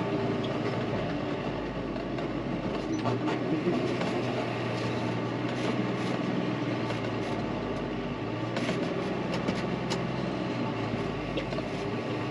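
John Deere tractor engine running steadily, heard from inside the cab, with a few short rattles and knocks from the tractor and its front loader as it carries a round bale.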